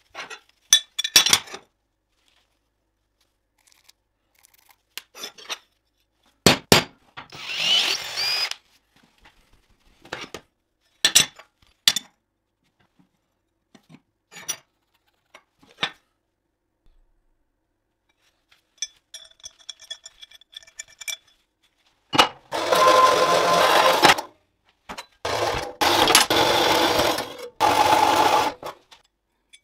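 Scattered clicks, taps and short scrapes of a metal flat bar being handled and marked, then a small metal-cutting band saw cutting through the bar in two long stretches near the end, the loudest sound.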